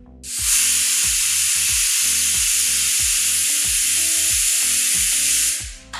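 Pressure cooker whistling: a loud, steady hiss of steam venting for about five seconds that starts and cuts off abruptly. It is one of the whistles counted to time the cooking of soaked chickpeas.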